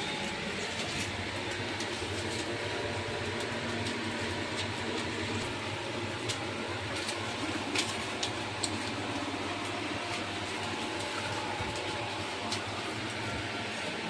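A steady mechanical whir with a low hum, with a few short sharp clicks about halfway through and again near the end.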